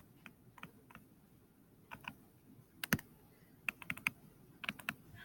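Faint, irregular light taps and clicks of a stylus on a touchscreen as words are handwritten, coming in small clusters with one sharper click about three seconds in.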